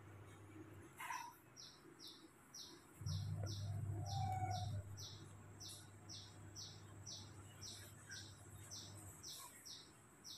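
A steady series of short high chirps, a little over two a second, over a low hum that swells for a couple of seconds about three seconds in.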